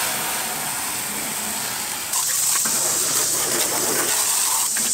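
Water spraying from a hose wand onto a pickup truck's bodywork, a steady hiss that grows louder about two seconds in.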